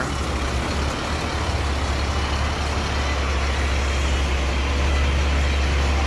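Boom truck's engine running, a steady low rumble that slowly gets a little louder.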